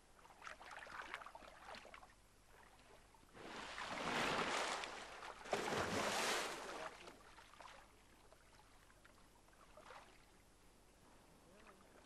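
Dolphins splashing in a pool: two loud rushes of water about a second long each, around four and six seconds in, with smaller splashes before and after.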